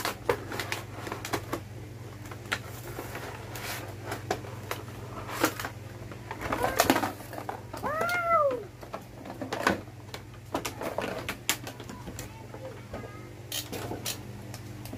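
Cardboard toy box and clear plastic packaging being handled and torn open: irregular rustling, crinkling and clicking, densest about six to seven seconds in.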